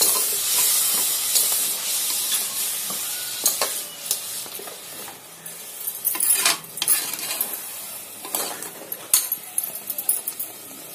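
Tomato-and-masala gravy sizzling in an aluminium pressure cooker while it is stirred with a steel spoon, with scraping clinks of the spoon against the pot. The sizzle is loudest at first and dies down, with sharper clinks in the second half.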